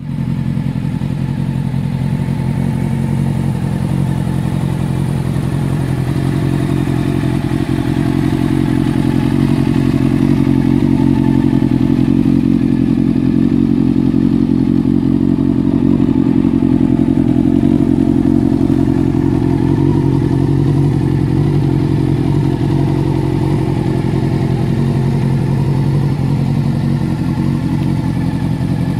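1990 Honda CBR600F's carbureted inline-four engine idling steadily through a Danmoto aftermarket exhaust, a little louder in the middle.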